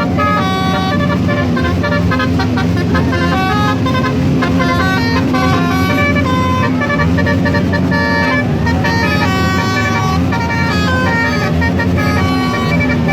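Telolet basuri multi-tone musical horn playing a tune of short notes that change pitch several times a second, over a steady low hum.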